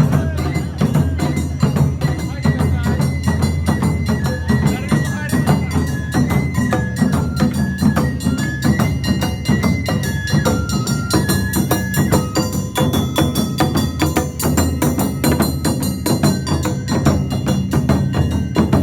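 Awa Odori festival band playing: a high melody stepping between held notes over fast, steady clanging and drumming percussion.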